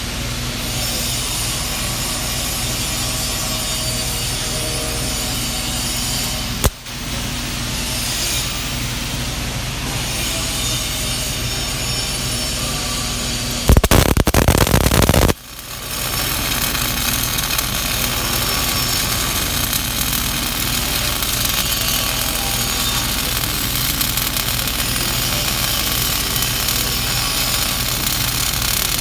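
Lincoln MIG welder's arc crackling steadily while a lap weld is run up a joint. The arc stops for a moment about seven seconds in. Near the middle there is a louder stretch of about a second and a half, then the arc resumes.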